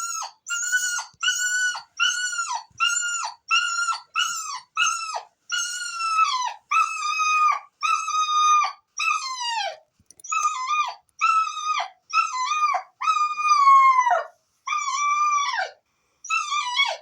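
Puppy howling: a long run of short, high-pitched howls, about one and a half a second, each dropping in pitch at the end, with a brief pause near the end.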